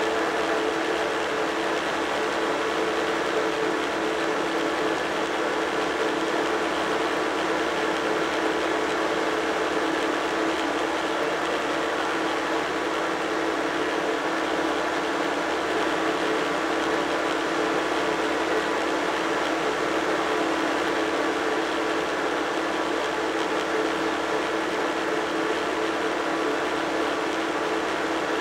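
Tractor engine running steadily under way at road speed, heard from on board, the pitch and level holding even throughout.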